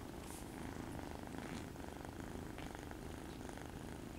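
Kitten purring steadily.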